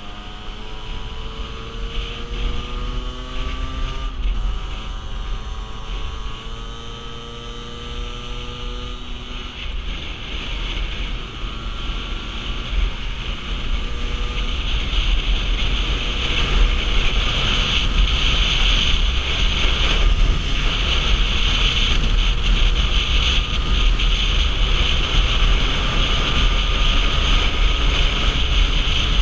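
50cc motorcycle engine accelerating, its whine rising, dropping at a gear change about four seconds in, then rising again. From about halfway, wind on the microphone grows loud over a steadier engine note.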